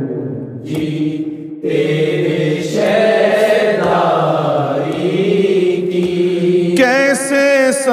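A solo male voice sings a devotional qasida in slow, long-held notes. After a brief dip at the start, the notes hold steady for several seconds, then the melody turns to wavering ornaments near the end.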